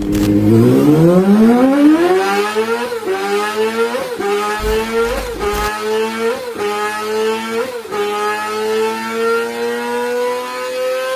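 Yamaha YZF-R series sport motorcycle engine and exhaust accelerating hard through the gears. The pitch climbs steadily for about three seconds, then several quick upshifts follow about a second apart, each a brief spike and dip in pitch, and the last gear pulls in one long steady climb.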